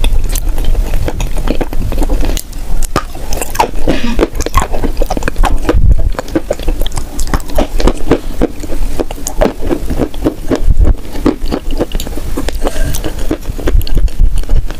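Close-miked wet chewing and lip-smacking of a mouthful of soft, sticky chocolate food, full of irregular sticky mouth clicks.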